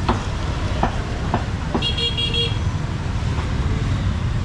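Street market bustle with a steady low rumble and scattered sharp knocks, and a short vehicle horn toot about two seconds in.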